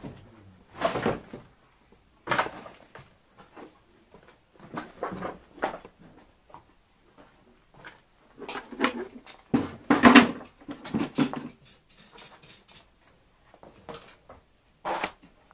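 Irregular knocks, scrapes and clatter of piled junk (boards, old appliances and scrap) being disturbed, in scattered bursts, with the loudest cluster about ten seconds in and a sharp knock near the end.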